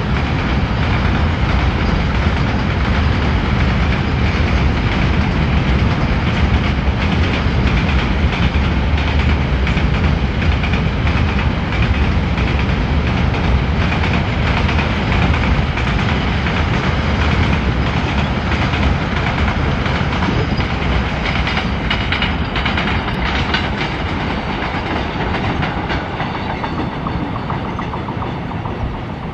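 Double-stack container freight wagons rolling past on the rails: a steady, loud rumble with wheel clickety-clack, easing off a little near the end as the tail of the train goes by.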